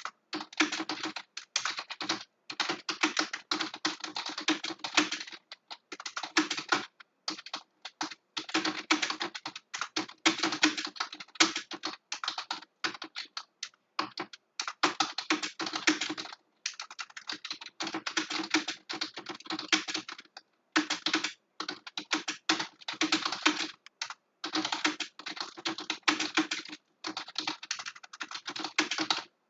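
Computer keyboard being typed on quickly and continuously, rapid key clicks in bursts of a few seconds with brief pauses between them.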